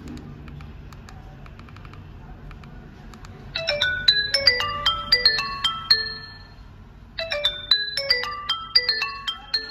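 A Vgotel i102 keypad phone plays its built-in ringtone through its single rear speaker. The ringtone is a quick melody of short stepping notes that starts about three and a half seconds in and plays twice with a short break between. A few faint key clicks come before it.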